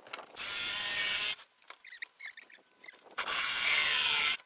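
Handheld power saw cutting through rigid foam insulation board, run in two bursts of about a second each that start and stop sharply, with small scrapes and ticks between them.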